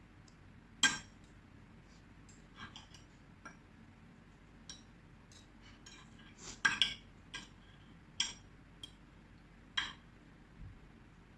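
Cutlery clinking against a plate: about a dozen short, sharp clinks at irregular intervals, the loudest about a second in and a quick cluster just past the middle.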